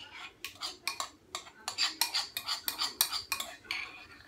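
A spoon clinking and scraping against a bowl in quick, irregular strokes as a runny homemade oat mixture is stirred.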